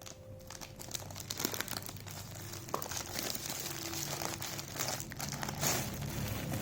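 Packaging crinkling and rustling as a gift bag is unwrapped by hand, a dense run of crackles.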